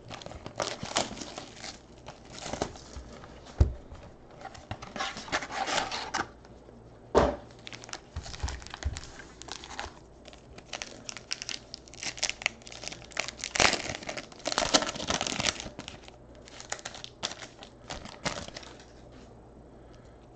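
A cardboard trading-card box being opened and a foil card pack torn open and crinkled by hand, in irregular crackling bursts, with a few sharp knocks from handling.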